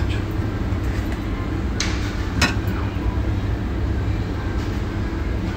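Steady low rumble of a restaurant kitchen's extractor hood, with two short clicks a little after two seconds in.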